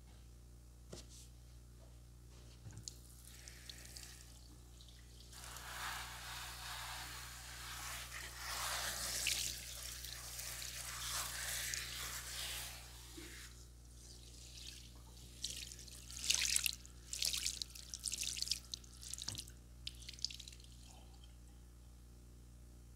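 Water running from a tap for about eight seconds, then a series of short splashes and drips.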